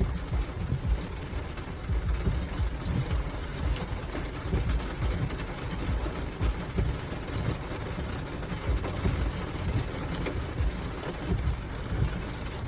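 Rain falling on a car's windshield and body, heard from inside the cabin as a steady hiss of drops over a low rumble.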